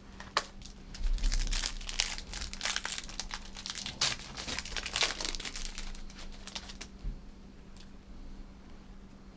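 Plastic trading-card pack wrapper being torn open and crinkled by hand: a dense run of crackling and tearing that starts about a second in and dies down past the middle, leaving only a few small crinkles.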